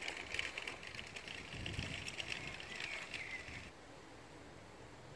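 Faint outdoor ambience with small birds chirping in the distance over a high hiss of background sound. About three and a half seconds in, it drops abruptly to a quieter low hush.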